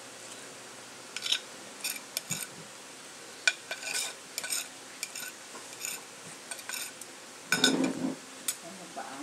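Metal spoon and fork clinking and scraping against a ceramic plate of rice, in short scattered strikes, with a louder, duller noise about seven and a half seconds in.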